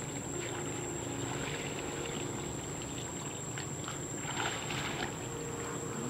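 Shallow water sloshing and trickling as a man wades and works a hand-held basket net among water lilies, with a slight swell about four and a half seconds in.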